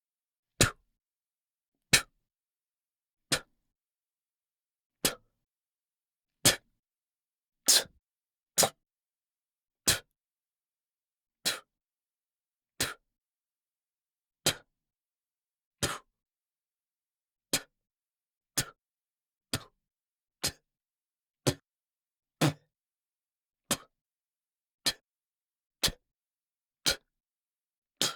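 A man's mouth making a short spitting 't' sound, over and over, each one a single sharp burst with silence between. They come about every one and a half seconds at first, then about once a second in the second half.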